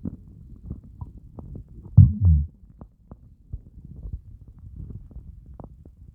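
Empty stomach growling and gurgling from hunger after a fast of more than 30 hours. Low bubbling rumbles with scattered small pops, and one louder, short growl about two seconds in.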